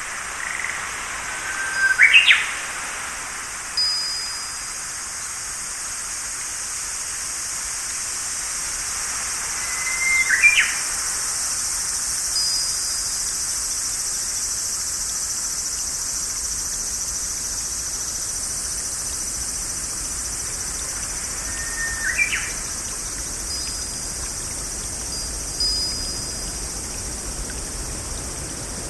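Birds calling in a nature ambience: three short calls that sweep sharply upward, spaced about eight and twelve seconds apart, and a few brief thin high whistles. Underneath runs a steady high-pitched insect chorus.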